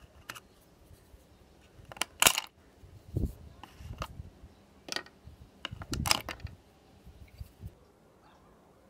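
A screwdriver, screw, washer and hook spring clinking and clicking against the plastic housing of a sewing machine foot pedal as it is taken apart. The sound is a string of separate sharp clicks and small knocks, loudest about two and six seconds in.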